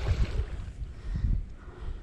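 Wind buffeting an action camera's microphone, an uneven low rumble that rises and falls in gusts.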